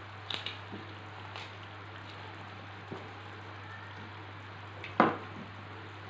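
Fish curry simmering in a wok: a steady bubbling hiss over a low hum. There are a few light clicks, and about five seconds in a single sharp knock, the loudest sound, as a knife and onion are set down on a plastic cutting board.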